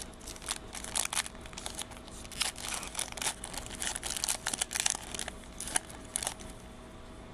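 Foil wrapper of a Panini Revolution trading card pack being torn open and crinkled by hand: a run of sharp crackles that stops about six seconds in.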